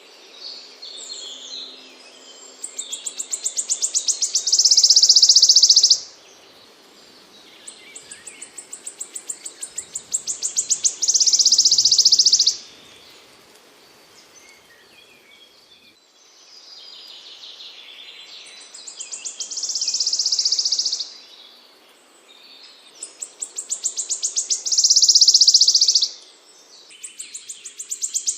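A small songbird singing a repeated high song: a run of quick notes that grows louder and ends in a loud buzzy trill lasting a second or two, heard about four times.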